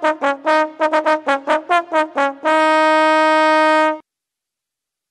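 Trumpet fanfare: a quick run of short repeated notes, then one long held note that stops abruptly about four seconds in. A royal fanfare heralding the king and queen.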